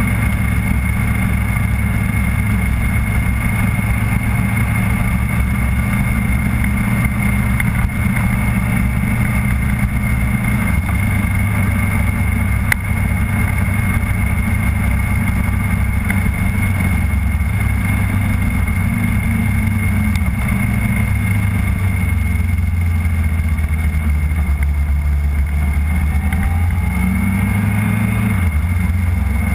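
A road vehicle's engine running at low, steady revs, picked up by a camera mounted on the vehicle, with wind and road noise. The engine note shifts about ten seconds in and again near the end as the speed changes.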